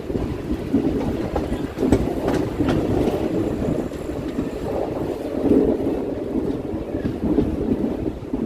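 Passenger train running along the track, heard from an open coach doorway: a steady rumble of wheels on rails with wind, and a few sharp clicks about two seconds in.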